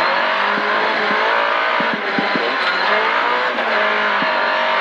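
Volvo 940 Group H rally car's engine revving hard under acceleration, heard from inside the cabin. Its pitch climbs and dips briefly twice, once for the upshift from second into third gear. Short ticks of gravel hit the underside.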